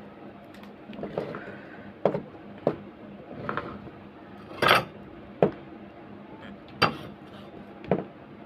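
Light clicks and clinks of small tools and electronic parts being handled on a workbench during an inverter board repair, about eight at uneven intervals.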